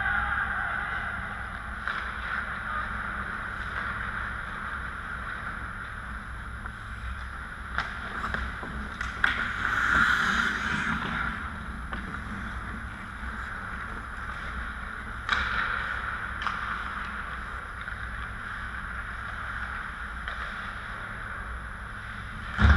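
Ice-hockey rink sound: a steady low hum with skates hissing on the ice, a louder scrape of skates stopping hard about ten seconds in, and a handful of sharp clacks of sticks and puck, with a loud knock at the very end.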